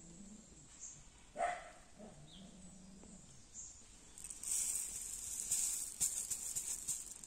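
A dog barks once about a second and a half in. From about four seconds in, a louder rattling patter follows, typical of fish-food pellets being shaken out and scattered onto the pond water.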